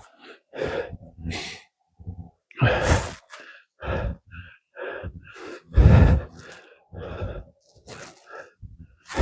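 Footsteps crunching in deep snow at a walking pace, about one to two steps a second, some landing with a heavier thud.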